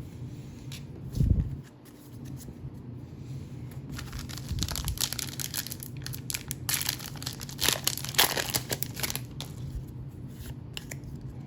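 Foil trading card booster pack being torn open and its wrapper crinkled, in a burst of quick crackling rips in the middle of the stretch, after a dull bump about a second in.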